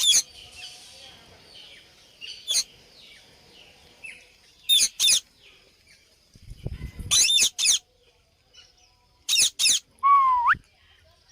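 Parrot giving short, shrill calls in quick bursts of two or three, repeated every couple of seconds, with fainter chirps between them. Near the end comes a lower whistle that dips and then sweeps sharply upward. A brief low rumble sits just past the middle.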